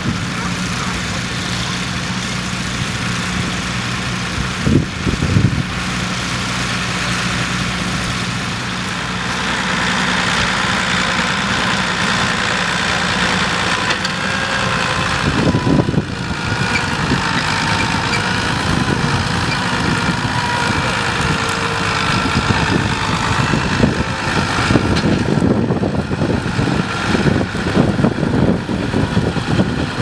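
Ford 7840 tractor's six-cylinder turbo diesel engine running steadily while pulling a plough through stubble. The sound gets rougher and more uneven near the end as the tractor comes close.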